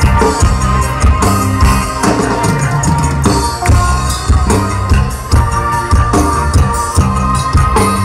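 Live dangdut koplo band music played loudly through a concert sound system, with a steady drum and percussion beat. It is heard from within the crowd, close to the stage.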